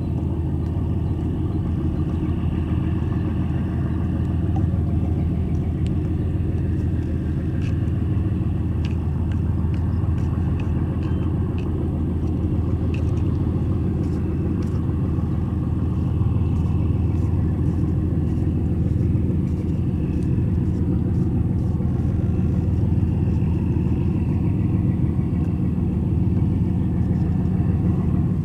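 Diesel engines of the high-speed passenger ferry Queen Star 6 droning steadily as it cruises past, a constant low rumble with a wash of water noise, and a few faint clicks in the middle.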